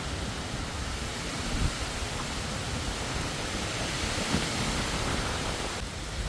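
Strong wind blowing, a steady rushing noise with a low rumble of wind buffeting the microphone.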